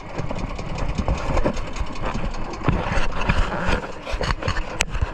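A small outrigger fishing boat's engine running steadily as the boat travels, with water rushing and splashing along the hull.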